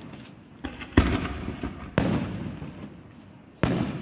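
Aerial firework shells bursting: three loud booms roughly a second apart, with a smaller pop before the first, each trailing off in a rolling echo.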